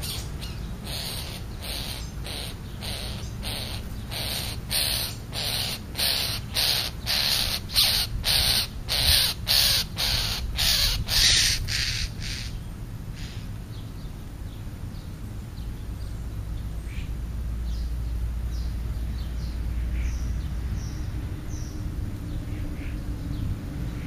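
A crow cawing over and over, about two harsh caws a second, growing louder and then stopping abruptly about halfway through. Afterwards only a few faint, short high chirps of smaller birds are heard.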